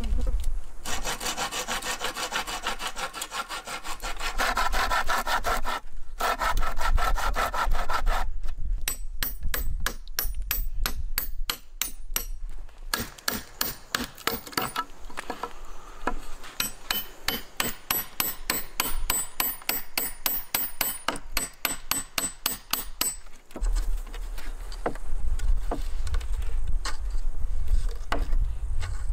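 Knife blade scraping and carving a wooden pole in quick, even strokes, several a second. Near the end it gives way to rougher, lower rubbing of wood.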